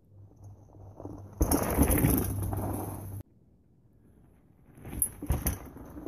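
Rigid single-speed Transition Klunker mountain bike rolling past close by on a dirt trail, tyres crunching over the dirt for about two seconds before the sound cuts off abruptly. A few sharp thumps follow near the end.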